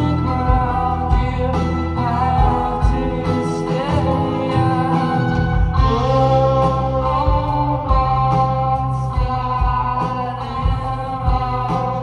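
A live band plays a song with drums, bass guitar, electric guitar and keyboard under a sung vocal line, with a steady drum beat.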